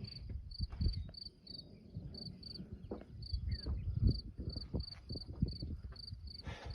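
Crickets chirping in short, even chirps, about three a second, over a low, gusty rumble of wind on the microphone.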